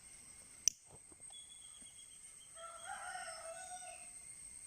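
A single sharp click under a second in, then a rooster crowing faintly in the background, one drawn-out crow.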